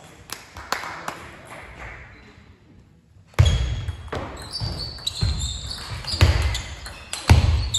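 Table tennis match play in a sports hall. A few light ball clicks come in the first second as the ball is bounced before the serve. About three seconds in, a fast rally breaks out: sharp clicks of the celluloid ball on bats and table, heavy thuds of footwork on the floor and high squeaks of shoes.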